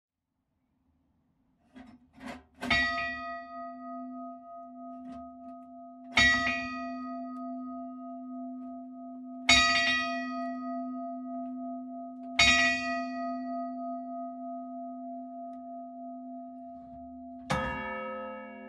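Small clock cimbal bell, 36 kg and tuned to e², struck four times about three seconds apart, each stroke ringing on into the next. Near the end the 806 kg hour bell of 1509, tuned to a¹, sounds its first stroke with a deeper, fuller ring.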